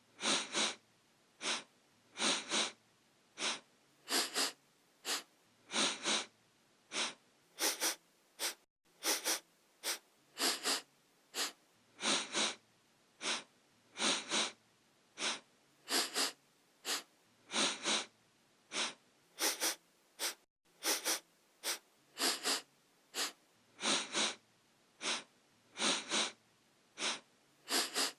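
A person sniffing through the nose over and over, short sharp sniffs mostly in quick pairs, about one pair every two seconds, as a looped sound effect.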